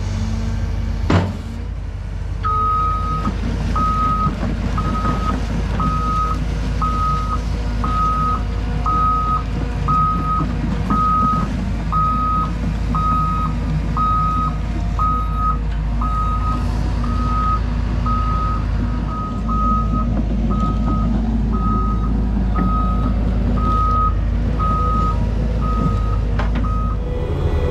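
A Cat excavator's warning alarm beeps about once a second over the steady running of its engine, starting a couple of seconds in and stopping near the end. A sharp knock comes about a second in.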